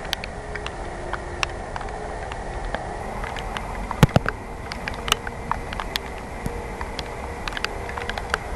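Steady hum of distant airliner jet engines running at low power, under irregular sharp ticks of raindrops striking the camera, with one louder knock about four seconds in.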